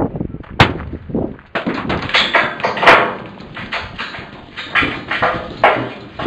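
A series of irregular knocks and thuds with rough noisy bursts between them; the sharpest knocks come about half a second, three seconds and five and a half seconds in.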